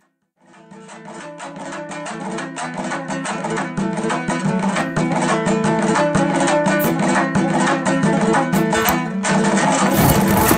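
Background music led by a plucked string instrument playing quick, rhythmic notes. It fades in about half a second in and grows louder over the first few seconds.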